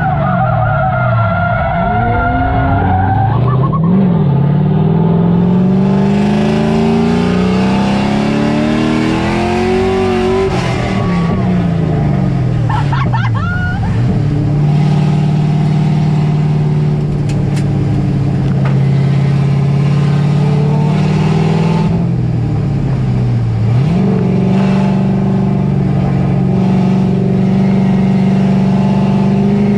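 LS V8-swapped Nissan S14 drift car engine revving hard, its pitch swinging up and down several times as the car slides, then holding high, steady revs for long stretches with one brief dip. A hiss of sliding tyres runs underneath.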